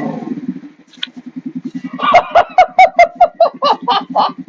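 Electric starter cranking the Venom X20's 125cc engine, a steady rapid chugging. From about two seconds in, a run of sharp pops comes about four a second as the engine tries to fire without catching.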